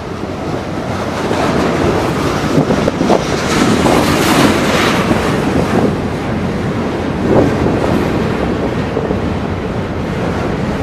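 Freight train cars rolling past close by: a steady rumble and clatter of steel wheels on rail, with wind buffeting the microphone.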